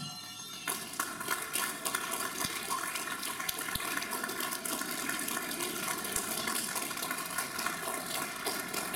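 Audience applauding. The last note's ring fades away and the clapping comes in under a second in, then carries on steadily as a dense patter of claps.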